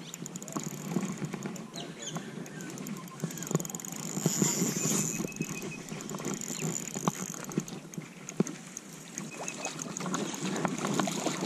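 A small hooked trout splashing at the surface close to the bank, mixed with the handling of a spinning reel right at the microphone: many small clicks, taps and rubbing sounds.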